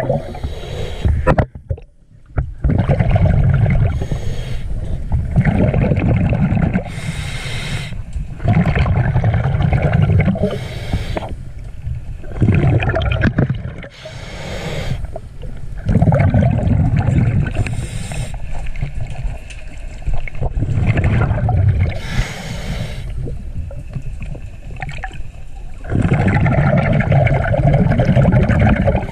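A scuba diver breathing through a regulator underwater: slow, regular breaths with the gurgling rush of exhaled bubbles, a breath about every three to four seconds.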